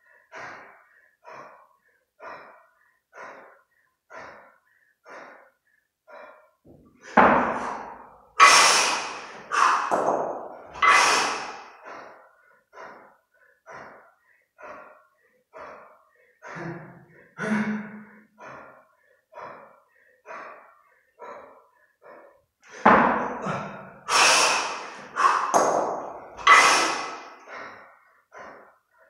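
A kettlebell lifter's heavy, quick, rhythmic breathing while holding two 32 kg kettlebells in the rack position, with two spells of loud, forceful exhalations about seven seconds in and again past twenty seconds.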